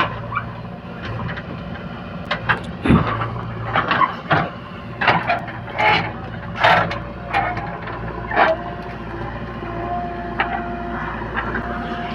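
JCB 3DX backhoe loader's diesel engine running steadily, with repeated clanks and knocks as it works. A thin steady whine comes in about eight seconds in and again near the end.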